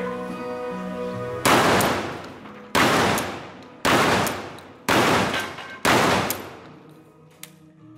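Pump-action shotgun fired five times in quick succession, about a second apart, each shot with a short echoing tail.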